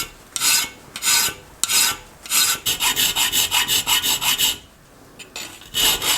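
Hand file rasping back and forth on a small steel folding-knife part, working the end to a snug fit. There are a few slow, long strokes, then quicker short strokes, a brief pause, and quick strokes again near the end.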